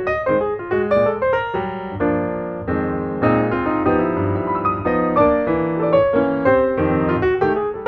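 Background piano music: a run of quick notes, with chords held about two seconds in.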